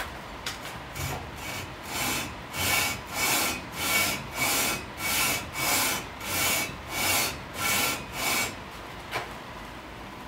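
Aluminum cylinder head being rubbed back and forth on 80-grit sandpaper glued flat to a table saw top, an even rasping scrape of about three strokes every two seconds that starts a couple of seconds in and stops near the end. This is hand lapping of the head's deck face to flatten it after weld repair.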